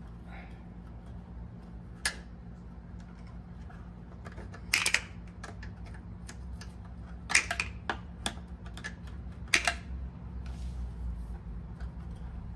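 Screwdriver working a hose clamp on a motorcycle's fuel hose: scattered sharp metallic clicks and clacks of the tool on the clamp and nearby metal. One click comes about two seconds in, and louder clusters come near the middle and towards the end, over a steady low hum.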